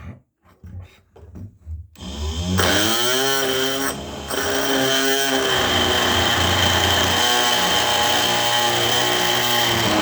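Ryobi oscillating multi-tool starting up about two seconds in, its pitch rising as the motor spins up, then running steadily with a high whine as its blade cuts through a floorboard nail. It dips briefly once, just after starting.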